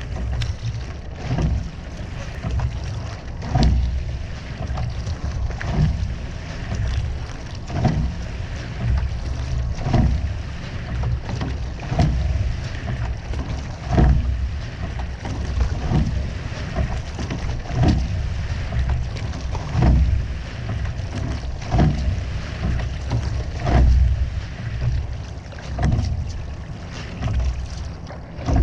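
Rowing shell under way at a steady stroke rate, with a short knock at each stroke about every two seconds, over water running past the hull and wind rumbling on the microphone.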